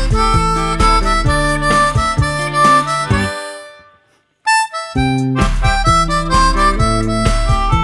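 Background music. It fades out about three seconds in, stops briefly, and starts again about a second later.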